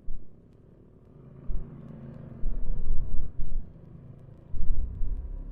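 Motorcycle engine running at low road speed, with several loud low rumbling bursts over it.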